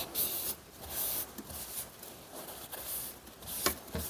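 Paper towel rubbing across an oiled steel axe head, wiping off WD-40 and loosened rust: a dry swish repeated about once a second.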